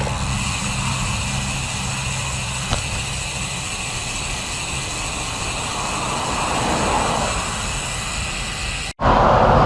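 Motor traffic on the road, a steady vehicle hum and road noise with one vehicle swelling louder about two-thirds of the way through. Near the end the sound cuts off abruptly and comes back as louder road and wind noise.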